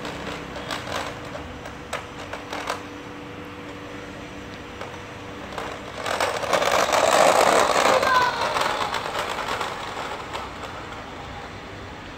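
A child's scooter rolling over asphalt. The sound swells as the scooter passes close about six seconds in, then fades over the next few seconds. A few sharp clicks come in the first three seconds.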